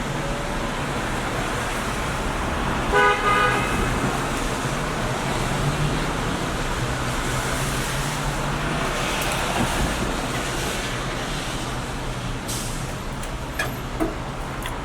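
Steady background hum of road traffic, with a short horn-like toot about three seconds in and a few faint clicks near the end.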